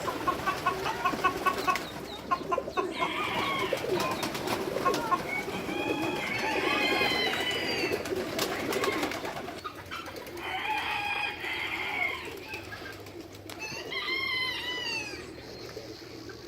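Farm poultry calling: quick clucking near the start, then several longer drawn-out calls a few seconds apart.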